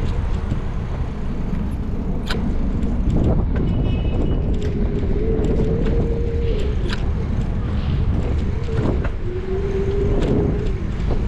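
A car driving along a city street: a steady low rumble of engine and road noise with a wavering hum, and a few sharp clicks.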